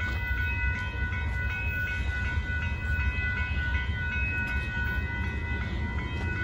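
Railroad grade-crossing warning bell ringing in rapid, evenly spaced dings, over a low steady rumble.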